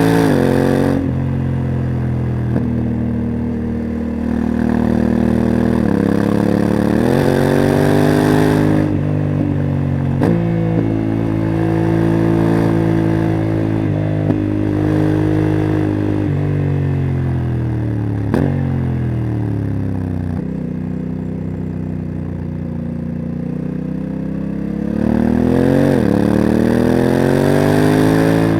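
Honda CRF1100 Africa Twin's parallel-twin engine with a Leo Vince exhaust, riding: the revs climb and fall off again several times as the bike accelerates and eases off, with the DCT gearbox changing gear. A few sharp ticks are heard along the way.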